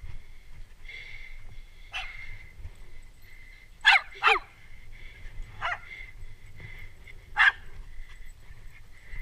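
Small dog barking at a passing rider: about five sharp, high yaps, two in quick succession about four seconds in and a loud one near the end.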